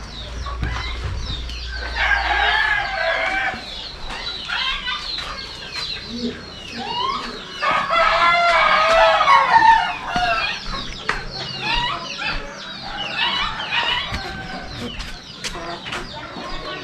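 Roosters crowing, the two loudest crows about two seconds in and about eight seconds in, over many shorter calls.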